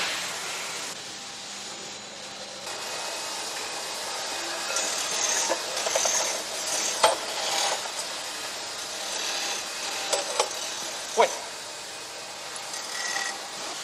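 Pillar drill at work in a metal workshop: a steady scraping, rasping noise with a few sharp metallic clicks, the first about seven seconds in and two more a few seconds later.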